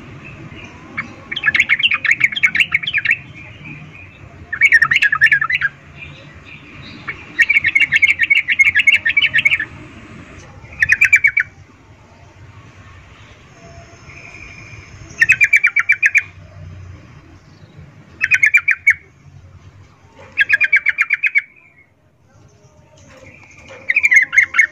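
Female yellow-vented bulbul (trucukan) giving about eight bursts of fast rattling chatter, each half a second to two seconds long: the 'ngecuplik' call of a female in breeding condition calling to a male.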